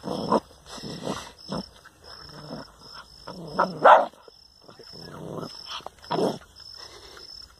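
Puppy giving a string of short barks and growls, about half a dozen separate sounds, the loudest about four seconds in, as it challenges its own reflection in a mirror.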